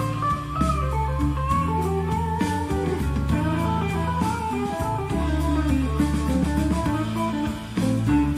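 Guitar-led music with drums, played back over Tandberg Studio Monitor loudspeakers driven by a Willsenton R8 valve amplifier.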